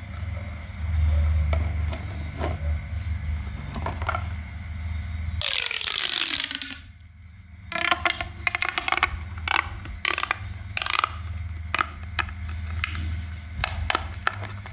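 Craft materials being handled while a DIY pop toy is made: scattered sharp clicks and crackles that grow dense in the second half, with one loud rushing noise about five and a half seconds in, over a steady low hum.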